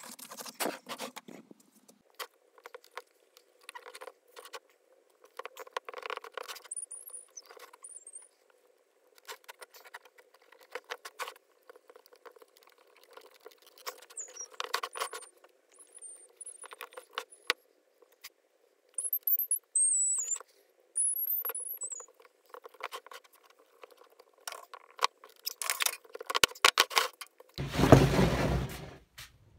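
Hands rubbing over and handling a small wooden crate: irregular scuffing strokes with a few brief high squeaks, and a louder bump of handling near the end.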